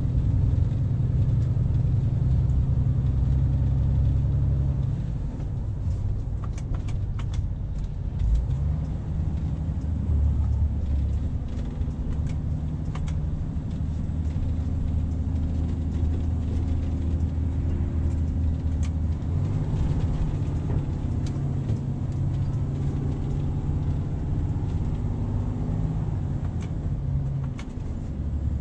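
MAN lorry's diesel engine and road noise heard from inside the cab while driving, a steady low drone that steps up and down in pitch a few times. A few light clicks are scattered through it.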